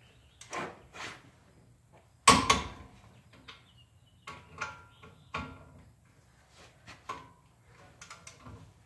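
Click-type torque wrench being pulled on the brake caliper bracket bolts, among small clicks and clanks of metal tools. One sharp loud click a little over two seconds in is typical of the wrench breaking over at its set torque of 95 foot-pounds.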